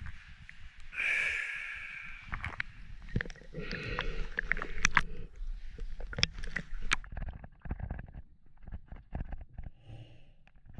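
A camera plunging into cave water: splashing and bubbles with a hissy rush about a second in and many sharp clicks and knocks. After about seven seconds the sound turns muffled and dull as the microphone goes fully under.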